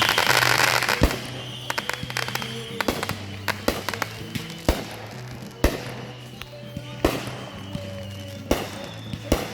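Aerial fireworks going off. A dense crackling burst comes in the first second, followed by a string of separate booms and pops at irregular intervals, with music playing underneath.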